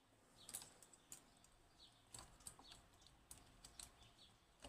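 Faint, irregular light clicks and taps, about a dozen spread over a few seconds, from small hard objects being handled.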